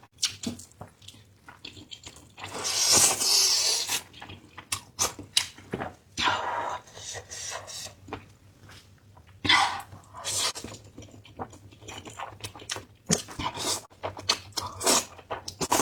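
A person slurping and chewing noodles in a series of irregular mouth sounds, with the longest, loudest slurp about two and a half seconds in and shorter ones around six and ten seconds in.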